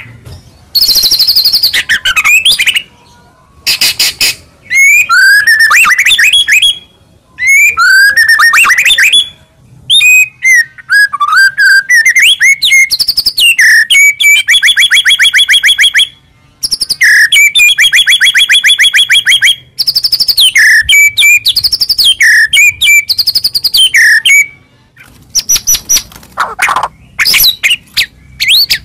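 White-rumped shama (murai batu) singing loudly, a varied song full of mimicked phrases. Its sweeping whistles and rapid rattling trills come in bursts of one to six seconds with short pauses between them.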